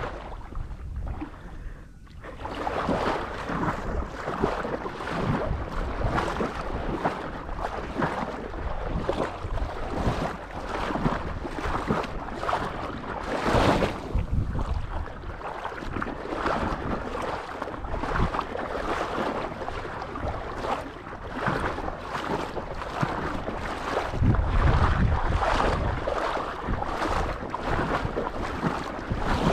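Wind buffeting the microphone in open marsh: steady noise with constant flutter, gusting louder about 24 seconds in.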